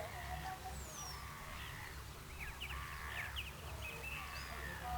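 Several birds calling in short chirps and squawks, with a falling whistle near the start and a quick run of repeated notes around the middle, over a steady low rumble.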